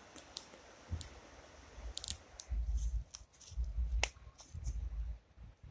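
Footsteps and phone handling noise while walking through wet woodland: scattered sharp clicks and snaps, then dull low thuds about once a second from about halfway in.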